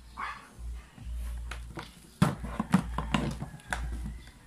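Plastic housing of a dismantled electric planer being handled and turned over on a workbench: scattered knocks and clicks, with a run of sharper knocks from about halfway through.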